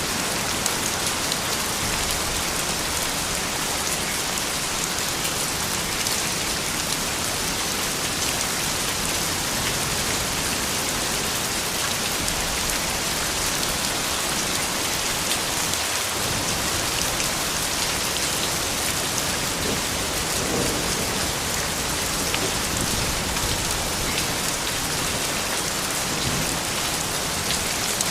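Steady rain falling on hard surfaces: a constant, even hiss with many individual drops tapping through it.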